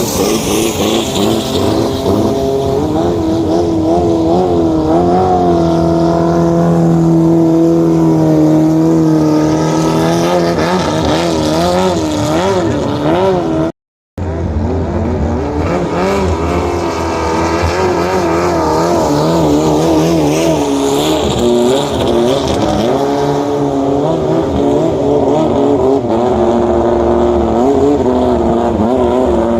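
Racing longtail boat engine running hard, its pitch wavering up and down as the revs rise and fall. The sound cuts out for an instant about halfway through.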